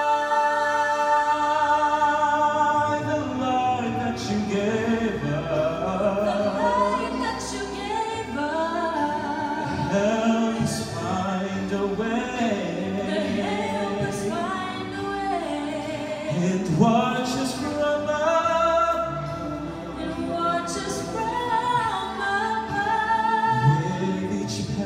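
A man and a woman singing a slow classical-style duet through microphones and PA speakers, in a reverberant church hall. It opens on one long held note, and after about three seconds the melody starts moving.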